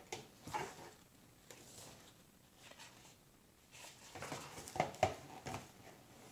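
A hardcover picture book being handled: the cover opened and pages turned, with soft paper rustles and a few light taps, the loudest about five seconds in.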